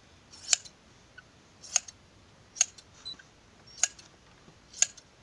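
Hand shears snipping through goat hair as a goat is sheared, five crisp cuts about a second apart.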